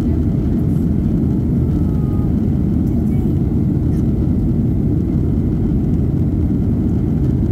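Steady low roar inside an airliner's cabin in flight: jet engine and airflow noise.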